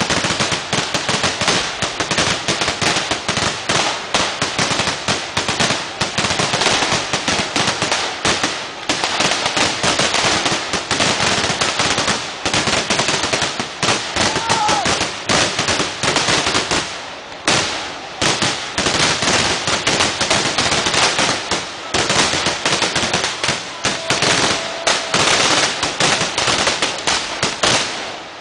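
Vedikkettu, Kerala temple-festival fireworks: a loud, dense barrage of firecracker explosions going off in such rapid succession that the bangs run together into one continuous crackle. There is a brief lull about seventeen seconds in.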